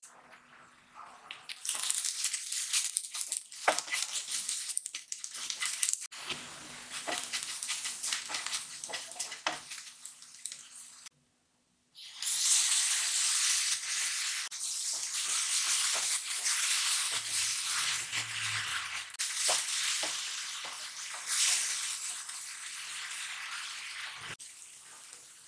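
Onion and spice masala sizzling in hot oil in a non-stick frying pan, with a wooden spatula stirring and scraping in small clicks. The sound drops out for about a second partway through, then the sizzling comes back louder as ground tomato is cooked into the masala.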